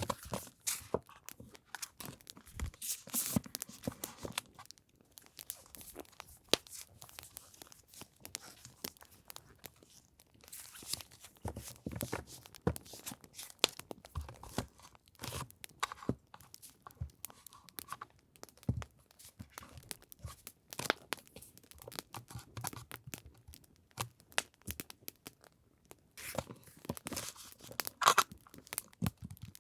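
Paper items and storage boxes being handled and sorted by hand: irregular rustling, crinkling and light clicks and taps, busiest near the end.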